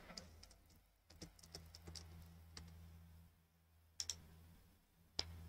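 Faint computer keyboard typing and mouse clicks: a short run of soft keystrokes, then a quick pair of mouse clicks about four seconds in and one more click near the end, over a faint steady low hum.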